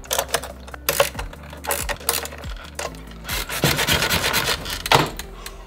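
Hand-fitting of a metal mounting plate with wire-rope suspension onto an RC car chassis: a series of small clicks and knocks as the plate meets the bolts. A stretch of scraping and rubbing follows, then a sharper knock near the end as it is pressed into place.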